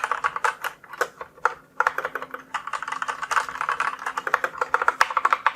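Typing on a Krux Atax RGB mechanical keyboard with Outemu Red linear switches: a fast, uneven stream of key clacks, fairly quiet, with a brief lull just under two seconds in.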